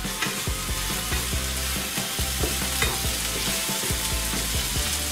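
Chopped onion and garlic sizzling in vegetable oil in a frying pan, frying toward translucent. A wooden spatula stirs them, knocking lightly against the pan a few times.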